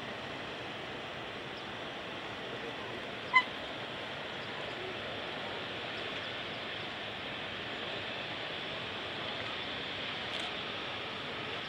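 Steady rushing background noise at an airport, with one short, sharp beep about three seconds in.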